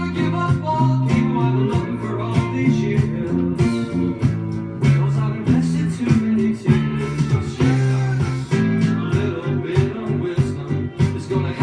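A vinyl record playing on a turntable: a song with picked guitar and a singing voice.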